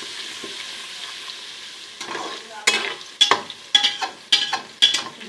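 Ginger-garlic paste frying in ghee with onions, sizzling steadily. About two seconds in, stirring begins, the utensil knocking and scraping against the pot about twice a second.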